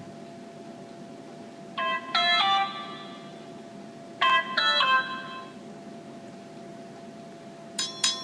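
Alcatel OT-708 mobile phone playing a built-in notification tone through its small speaker: a short electronic chime of a few notes, heard twice about two and a half seconds apart. Near the end the next tone starts, a quick run of sharp electronic beeps.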